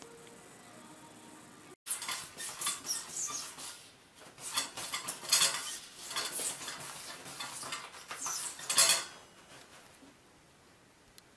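Toilet paper rustling and crinkling in a quick run of crisp bursts as a cat paws and scrabbles at it. The bursts start about two seconds in, are loudest near the middle and again near the end, then die away.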